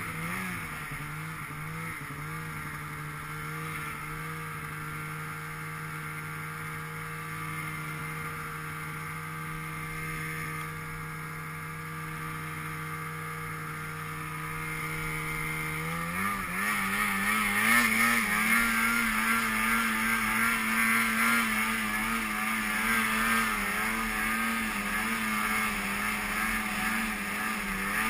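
Snowmobile engine running at a steady speed, then throttled up a little past halfway through and held at a higher, louder pitch.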